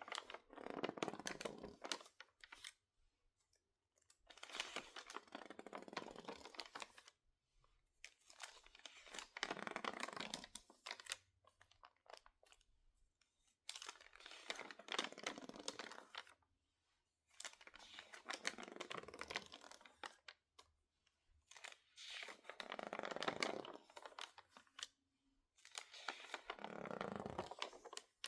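Crinkled magazine pages, stiff from being misted with water and dried, crackling as they are handled close up. There are about seven bursts of crinkling, each lasting roughly two seconds, with short quiet gaps between them.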